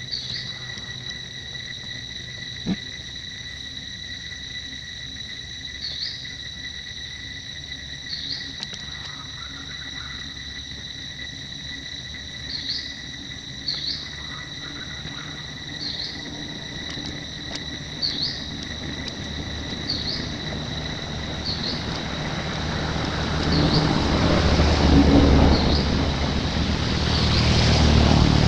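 Forest ambience: a steady, high insect drone, with short chirps every second or two. A rushing noise swells over the last few seconds.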